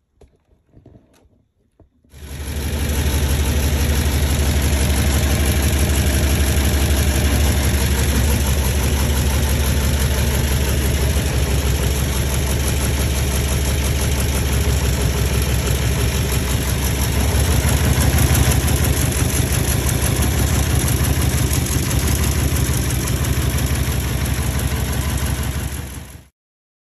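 Turbocharged LS V8 engine running steadily at idle. It starts abruptly about two seconds in and cuts off near the end.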